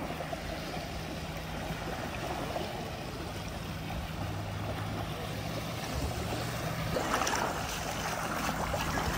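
Gentle surf washing onto a pebble beach, a steady rush of water with wind on the microphone. It grows louder about seven seconds in, as the water swirls around feet at the water's edge.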